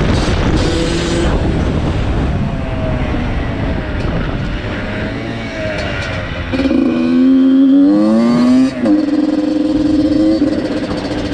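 Dirt bike engine running, then revving up hard about six and a half seconds in, its pitch climbing for about two seconds before dropping off sharply and holding steady.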